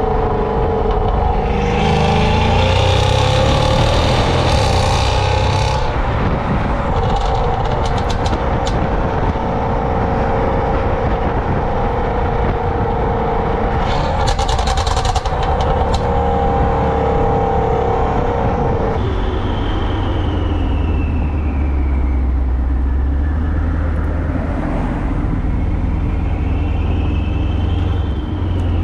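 Exhaust of a Mercedes-Benz S550's twin-turbo V8 with catless downpipes and a resonator delete, heard close to the tailpipe while the car drives. It holds a steady drone with a low rumble, then about two-thirds of the way through the drone stops and a deeper rumble takes over.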